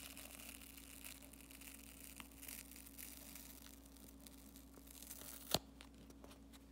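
Faint crackling of scissors cutting and tearing through a soft foam squishy toy, with one sharp snip-like click about five and a half seconds in, over a faint steady hum.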